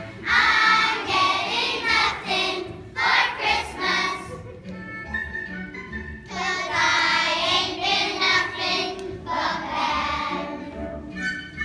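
A group of young children singing together over musical accompaniment, in phrases broken by short pauses.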